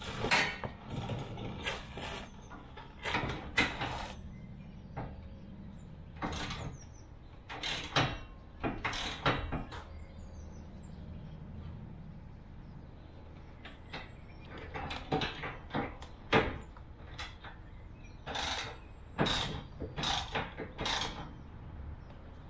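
Ratchet socket wrench clicking in repeated short runs, with pauses between, as the bull bar's chassis bracket bolts are done up tight.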